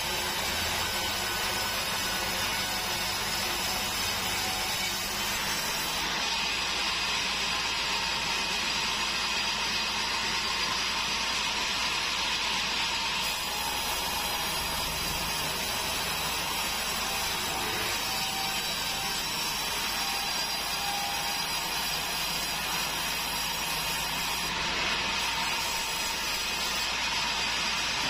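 Sawmill bandsaw running steadily and cutting a long keruing log into boards.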